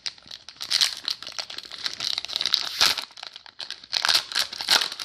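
Trading card pack wrappers crinkling and tearing as packs are ripped open: a dense, irregular rustle with sharper rips about three seconds in and near the end.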